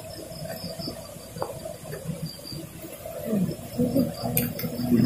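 Night insects chirping in a broken run of short, high, thin pulses, with a faint low voice near the end.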